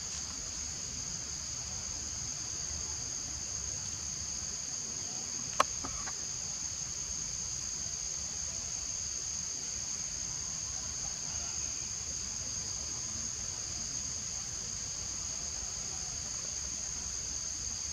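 Insects droning steadily at a high pitch over a faint outdoor hiss, with one sharp click about five and a half seconds in.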